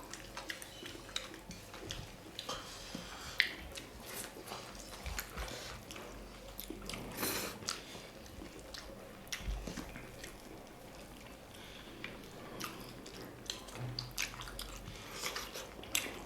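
Eating sounds: chewing and mouth noises with many small, scattered clicks and crackles as people eat meat biryani.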